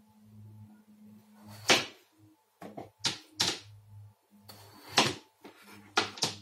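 Kitchen knife cutting through a peeled bottle gourd and knocking on a plastic chopping board: about six sharp chops, two of them in quick succession near the end.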